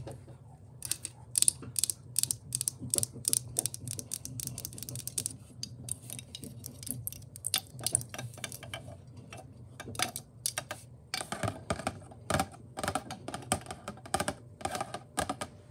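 Long fingernails tapping rapidly on hard objects, a square block-shaped lamp base and a box, making fast flurries of sharp clicks with brief pauses.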